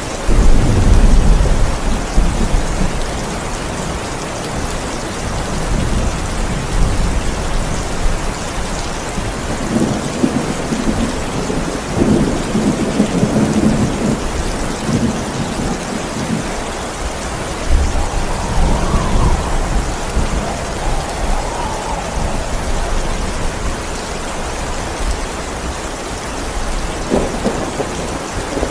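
Steady heavy rain with thunder: a loud low peal breaks in right at the start, and more rumbles roll through again and again.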